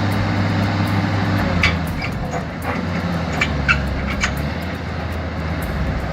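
A large engine running steadily, its note dropping about a second and a half in, with scattered sharp clanks and knocks over it.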